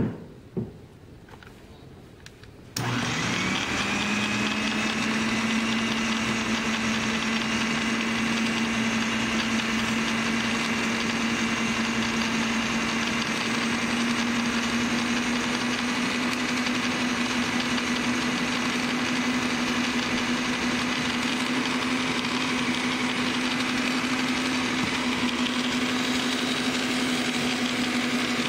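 Stand mixer with a spiral dough hook switched on about three seconds in, after two short clicks, its motor hum rising briefly as it comes up to speed and then running steadily while it mixes flour into the liquid.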